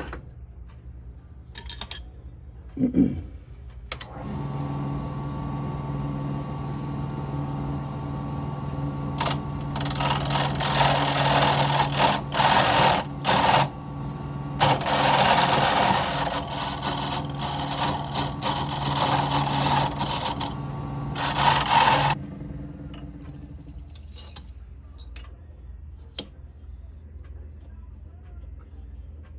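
A small electric power tool starts about four seconds in and runs with a steady hum. Loud rasping stretches come and go while it works the piece. It shuts off and spins down a little past twenty seconds in.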